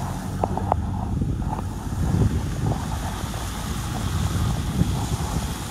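Wind buffeting the microphone: a low, gusty rumble that rises and falls, with a few faint clicks about half a second in.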